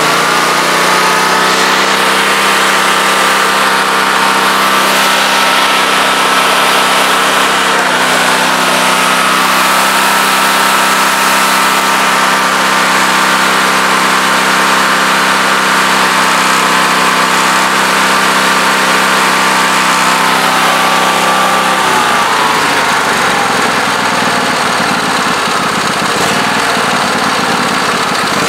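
Husqvarna YTH2448 riding mower engine running at a raised, steady speed after picking up just at the start, then slowing down about three quarters of the way through and settling to a lower speed.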